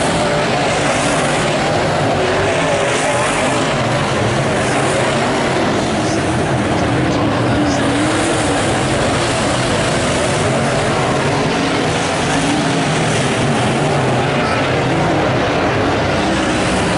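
Late model sedan race cars' engines running hard around a dirt speedway oval. The sound is a loud, steady drone whose pitch wavers up and down as the cars lap.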